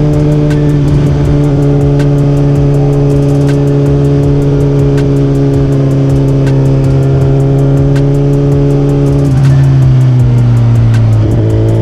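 2023 Suzuki GSX-R1000's inline-four engine running at a steady cruising speed, its note dropping a little about nine seconds in and again near the end as the revs ease off.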